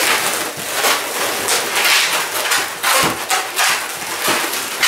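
Long latex modelling balloons rubbing against each other as they are twisted and woven together by hand, a run of scratchy rubbing strokes.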